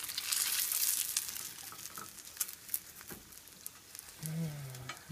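Vegan burger patties and a green onion pancake sizzling in hot oil, the hiss loudest in the first couple of seconds, with short taps and scrapes of a wooden spatula against the stainless steel pan. A man's voice starts near the end.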